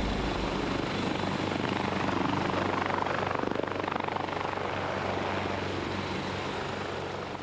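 AgustaWestland AW139 twin-turbine helicopter in flight: steady rotor and engine noise with a fast, even blade beat.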